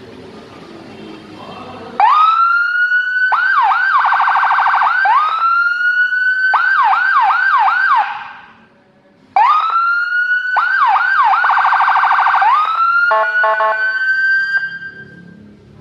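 Whelen electronic siren cycling through its tones: a rising wail, then fast yelping sweeps and a rapid warble. It cuts out about eight seconds in and starts the same sequence again about a second later. Near the end it gives a brief buzzing horn tone, then a last rising wail that fades.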